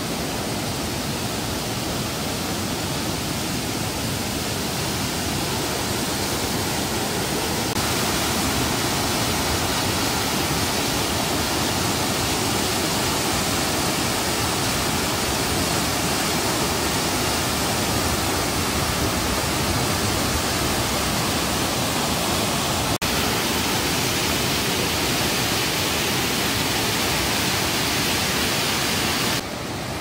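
Waterfall pouring over granite into a rocky mountain-stream pool: a steady, loud rush of water. It steps up in loudness about a quarter of the way in and drops back just before the end.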